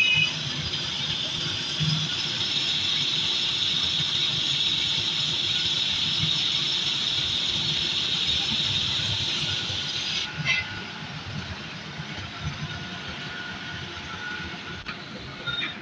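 Metal-cutting band saw running, its blade cutting through a thick round steel bar with a steady high hiss. About ten seconds in there is a short knock, and the sound then carries on quieter.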